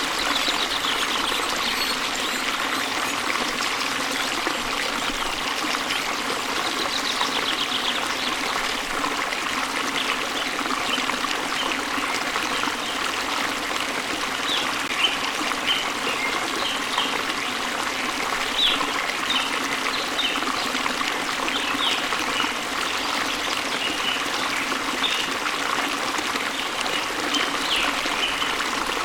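Waterfall splashing into a stream, a steady rush of falling and flowing water. Small birds chirp over it in short high notes, with a few quick trills and more frequent chirps in the second half.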